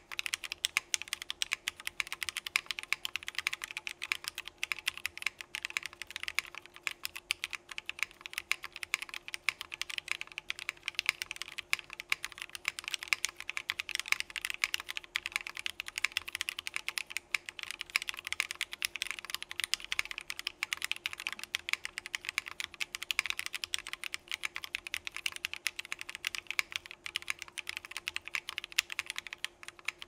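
Steady fast typing on a Geonworks Frog mechanical keyboard with Gateron Clear linear switches, stems lubed with Krytox 205g0, mounted in an aluminum plate with CRP Desko keycaps. Many keystrokes a second with no break.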